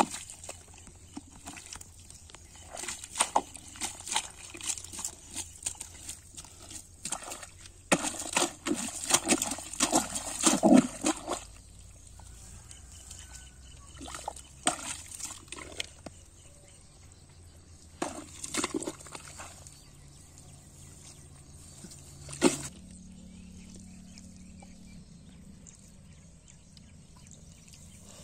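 Bare hands digging into a waterlogged mud crab burrow and scooping out wet mud, in irregular bouts of squelching and sloshing that are loudest about ten seconds in.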